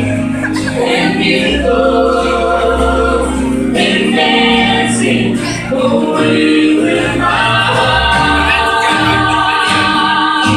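Background music with sustained choral singing over a steady bass line.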